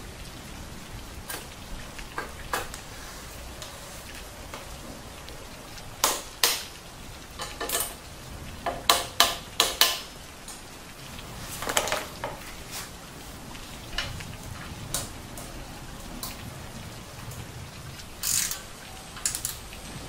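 Metal hand tools clicking and clinking against bicycle crank and bottom-bracket parts as the crankset is fitted and tightened with a ratchet wrench. The clicks come singly, with a quick run of about five near the middle, over a steady background hiss.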